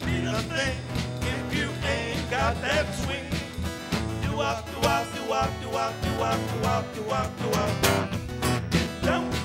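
Small combo playing an instrumental break of a swing tune: strummed acoustic guitar and drums, with a wavering harmonica lead over them.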